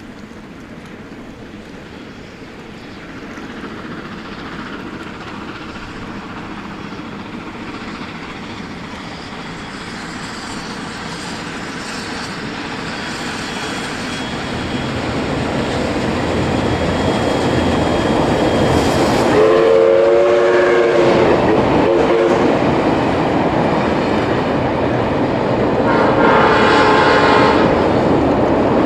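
Steam-hauled passenger train crossing a steel girder rail bridge: its rumble and wheel clatter grow louder as it comes closer. Two long multi-note warning blasts sound, one about two-thirds of the way through and another near the end.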